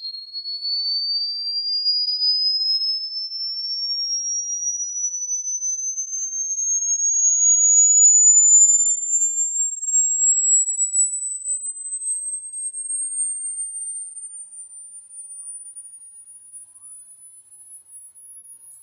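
A single pure electronic tone that rises slowly and steadily from a high whistle to a very high, piercing pitch, played as an ultrasonic-style rodent-repellent sound. It grows louder to about halfway, then fades as it climbs higher.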